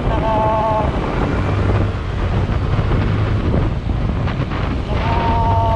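Motorcycle engine running at riding speed under heavy wind rush on the microphone. A horn sounds two short steady beeps, one just after the start and one near the end.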